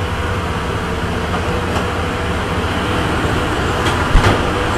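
El Chepe passenger train running, heard from inside a carriage: a steady rumble and rattle, with a few sharp knocks in the second half, the loudest about four seconds in.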